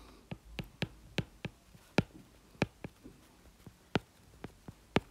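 Stylus tip tapping and clicking on a tablet screen while handwriting words: sharp, irregular clicks about three a second.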